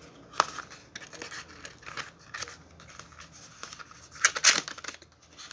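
Phone-box packaging being handled and pulled open by hand: scattered scrapes, crinkles and small clicks, with a louder flurry of them about four seconds in, as the phone's back cover is worked free.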